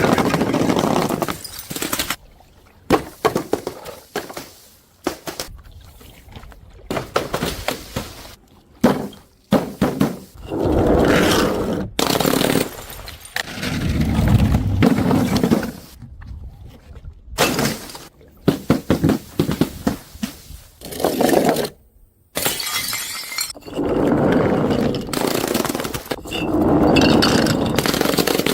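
Glass bottles and jars smashing one after another: a series of sharp crashes, several trailing off in the scatter of broken glass.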